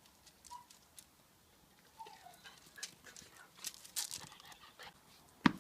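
Labrador puppy's soft play noises: breathy panting and a brief falling whimper about two seconds in. A single sharp knock near the end is the loudest sound.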